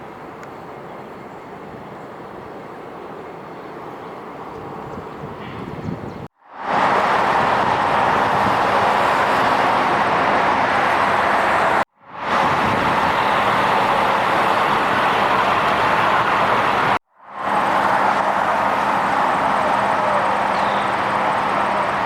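Steady outdoor traffic noise, a continuous rush with a faint engine hum, cut abruptly three times where separate recordings are joined.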